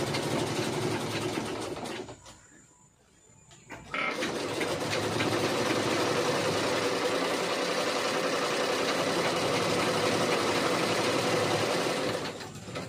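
Domestic sewing machines, one driven by a small electric motor, stitching cloth at a fast, steady run. They stop for about two seconds near the start, then run again until just before the end.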